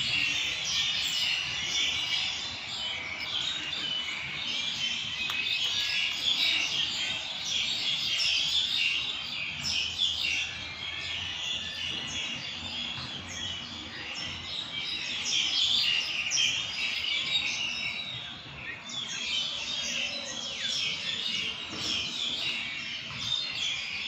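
A dense chorus of many birds chirping and calling in the tree canopy, a steady mass of overlapping high chirps.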